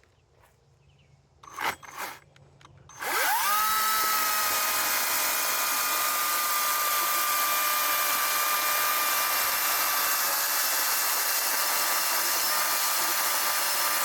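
After a couple of knocks, an 80-volt Greenworks battery electric chainsaw is triggered about three seconds in: its motor whines up to speed in under a second and then runs steadily at full speed, a high even whine over the hiss of the chain.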